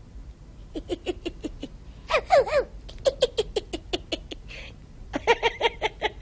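Laughter in three runs of quick, short pitched syllables, about five a second, with a longer rising-and-falling cry a little after two seconds in.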